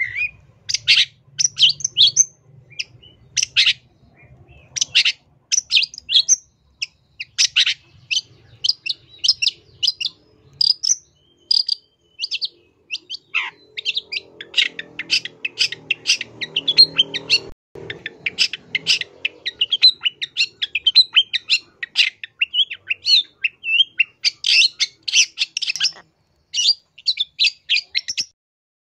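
Long-tailed shrike (cendet) in full song: a rapid, near-continuous stream of short, sharp chattering and whistled notes packed with mimicked phrases, the kind of 'gacor' song used as a lure recording. It runs densest around the middle and again near the end.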